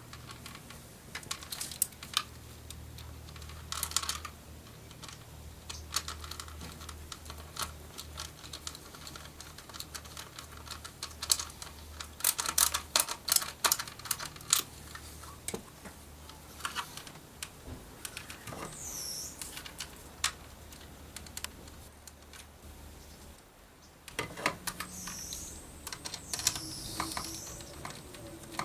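Screwdriver working a small screw into the plastic power-window switch mount of a car door panel: irregular sharp clicks and taps of tool on plastic, with a few brief squeaks.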